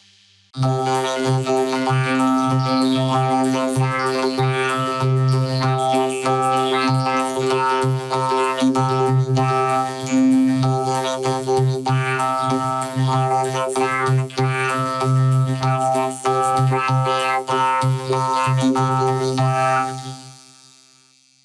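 Electronic synthesizer music: a steady droning chord with a strong low note, starting about half a second in and fading out near the end.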